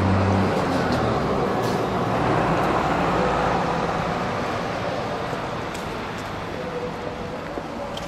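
Road traffic on a busy street: vehicles passing, the tyre and engine noise at its loudest about two or three seconds in and then slowly fading.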